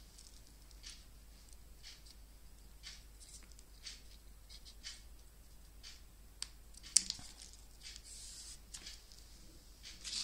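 Faint rustling and light ticks of paper handled by hand as a paper word strip is laid on a journal page and pressed down with the fingers, with one sharper click about seven seconds in.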